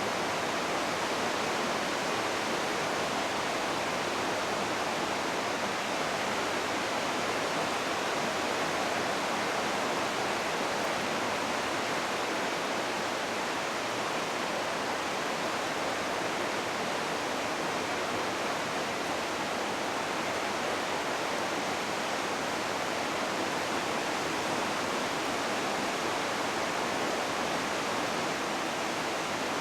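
Smith River in flood: the steady, even rush of high, fast-moving floodwater.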